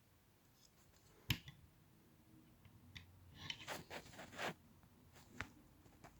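Plastic LEGO pieces being handled and pressed together: a sharp click about a second in, a cluster of small clicks and rustling around the middle, and another click near the end.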